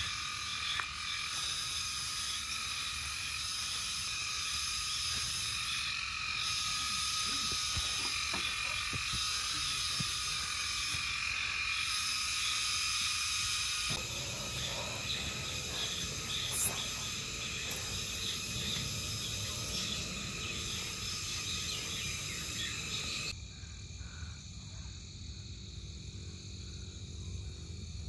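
Night chorus of insects and frogs: a dense, steady, high-pitched trilling and chirping. The mix changes abruptly about halfway through and thins out near the end.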